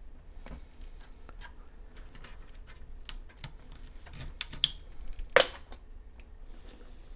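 Plastic case of a Commodore 64 being opened by hand: scattered small clicks and taps on the plastic shell, with one louder sharp click a little past five seconds in.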